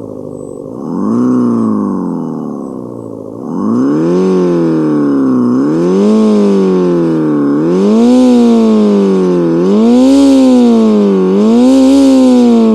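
Homemade optical engine-sound simulator, a patterned spinning disc read by an infrared photoreflector, imitating an equal-length-exhaust four-cylinder engine being free-revved. One short blip comes about a second in, then from about three and a half seconds a rev every two seconds or so, each rising quickly in pitch and falling back.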